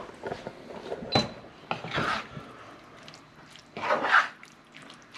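Slotted spatula scraping and stirring seasoned ground beef in a nonstick skillet, in a few separate strokes, the loudest about four seconds in.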